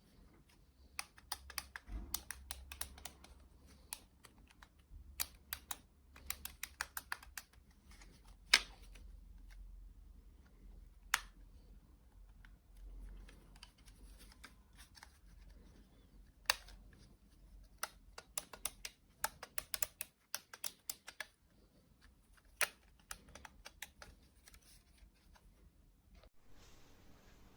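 Irregular light clicks and taps of small hard plastic parts being handled, coming in quick clusters with a few single sharper knocks.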